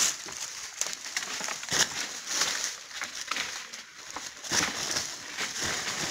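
Dry leaf litter and twigs crunching and crackling underfoot, in irregular snaps and rustles.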